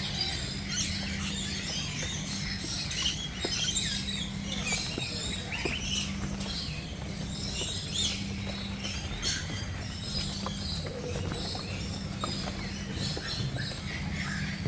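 Many small birds chirping and squeaking, their short calls overlapping continuously, over a steady low hum.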